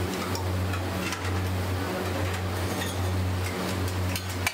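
Egg mixture sizzling on a large flat iron griddle: an even hiss over a low hum, with one sharp click near the end.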